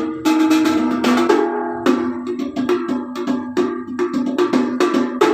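Stainless-steel sheet-metal ball played by hand like a handpan: a steady run of taps, about three a second, each ringing with a metallic, not-quite-in-tune note.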